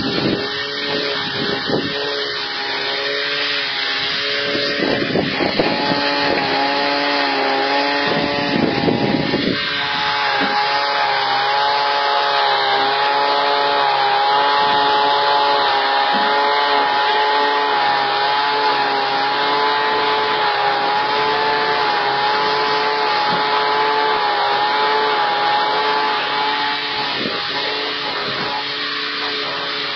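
Steady machine drone with a hiss of air from the air supply inflating low-pressure lifting bags through hoses, a held whine that wavers a little in pitch. A couple of short rushing noises come about five and nine seconds in.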